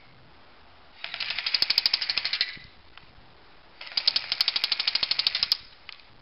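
Electric airsoft MP5 (AEG) firing on full-automatic: two bursts of rapid shots, the first about one and a half seconds long, the second about two seconds.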